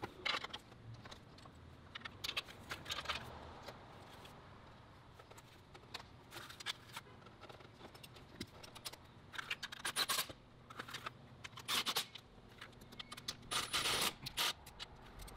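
Light metallic clicking and clinking in short bursts as the intake manifold bolts are handled, threaded in and run down with hand tools.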